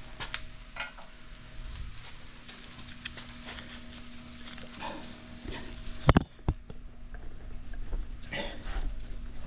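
Scattered clicks and light knocks of metal engine parts being handled and worked loose during a teardown, with one sharp metallic knock about six seconds in and a smaller one just after, over a steady low hum.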